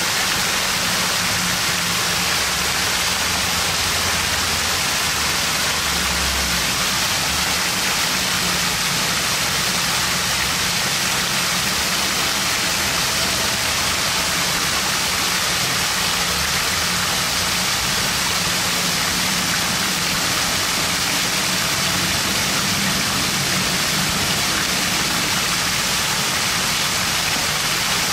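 Water pouring in a curtain off the rim of a mushroom-shaped splash-pad fountain and splashing down, a steady rushing sound with a faint low hum underneath.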